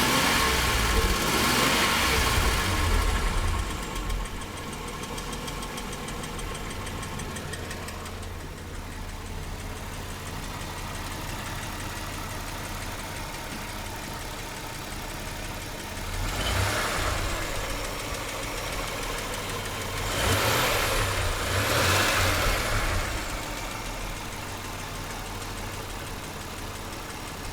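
Mitsubishi 6G72 V6 engine idling with an unexplained knock, held at raised revs at first and settling to idle about three seconds in. It is blipped once about halfway through and twice more a few seconds later, falling back to idle each time.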